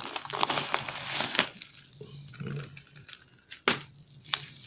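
Hands rustling and crinkling plastic packing wrap and cardboard in a shipping box, with a few sharp crackles.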